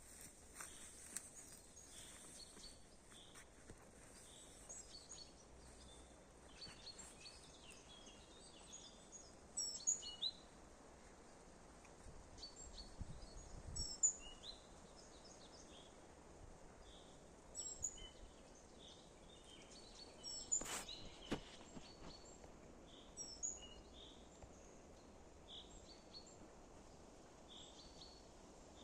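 Woodland birds calling: short, high chirps and calls scattered throughout over a faint steady background hiss. A single sharp click comes about two-thirds of the way through.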